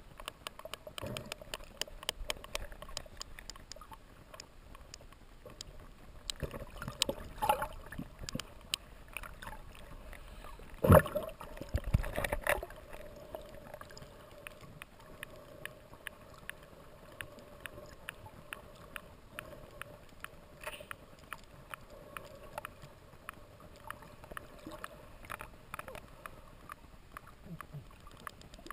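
Sperm whale echolocation clicks recorded underwater: a steady train of sharp clicks, several a second, which the diver takes to be the whale likely adjusting its bearing. About eleven seconds in there is a loud thump with a brief rush of water noise, the loudest sound here.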